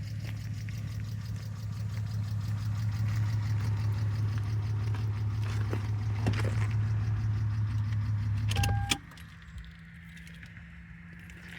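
Car engine running with a steady low hum, then switched off about nine seconds in, with a short electronic beep just as it stops.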